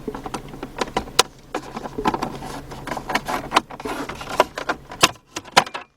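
Irregular clicks and knocks of a plastic center console trim panel being handled and pried at.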